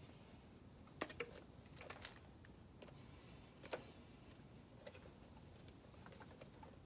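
Faint handling noises as a fabric shoulder sling is fitted onto a plastic skeleton: soft rustles and scattered small clicks and knocks. The sharpest come about a second in, around two seconds and near four seconds.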